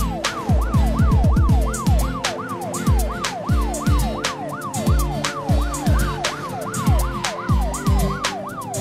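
Cartoon police-car siren sound effect, a fast rising-and-falling wail repeating about two to three times a second, over background music with a steady kick-drum beat.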